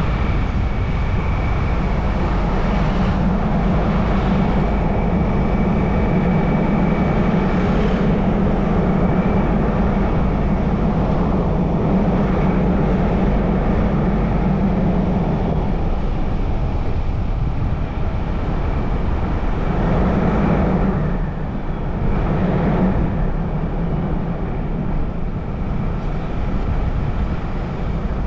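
A car driving along: steady engine and tyre-on-road noise with a low hum, easing slightly a little after the middle.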